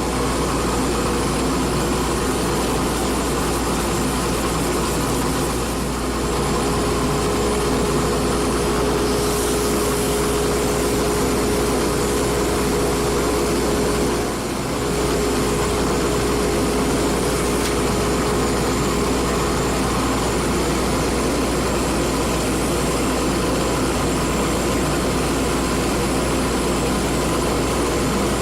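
Wood lathe running steadily, a constant motor hum with one even whine, dipping briefly twice.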